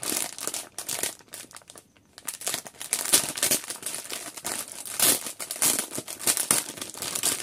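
Plastic wrapping of a wholesale Fevikwik pack crinkling as it is handled and opened by hand: an irregular crackle, with a brief lull about two seconds in.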